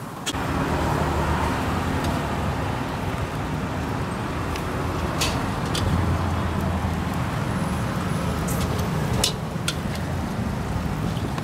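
Street traffic: a steady low rumble of motor engines passing, swelling briefly about halfway through, with a few sharp clicks.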